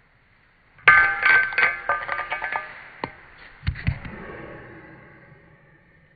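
A bottle cap knocked off by a kick: a sudden hit about a second in, then the cap clattering and spinning with a ringing rattle for about two seconds, and a few more sharp taps near four seconds as it settles.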